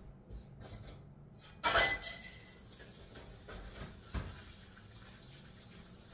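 Stainless steel mixing bowl clattering in the kitchen sink about two seconds in, then tap water running into it, with a single knock a couple of seconds later.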